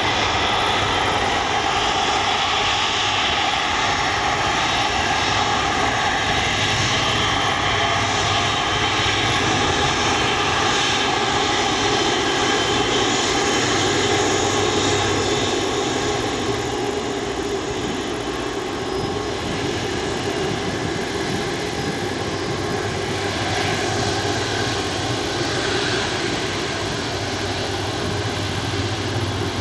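The four Rolls-Royce Trent 500 turbofan engines of an Airbus A340-600 running at takeoff thrust, a steady jet roar through the takeoff run and liftoff. The sound eases slightly about halfway through as the airliner climbs away.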